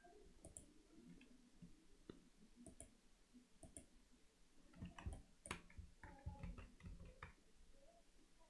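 Faint computer mouse clicks and keyboard key presses, a few scattered clicks and then a quick cluster of them, over near-silent room tone.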